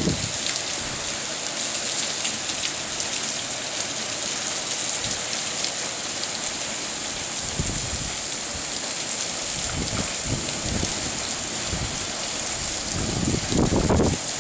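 Heavy monsoon rain falling, a steady even hiss, with low rumbling surges near the end.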